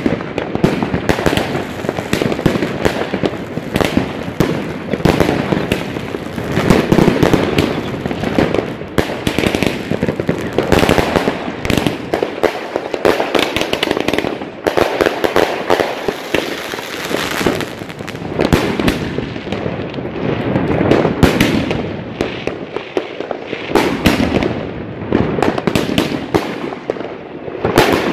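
Svea Fireworks Ragnarök, an 86-shot consumer fireworks cake of 18–45 mm shells, firing in rapid succession: a dense, unbroken barrage of launch shots and bursts that swells louder and eases several times.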